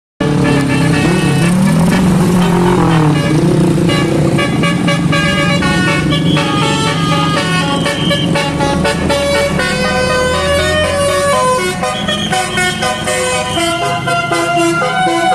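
Telolet-style multi-trumpet bus air horn playing a melody, its notes switching in quick steps.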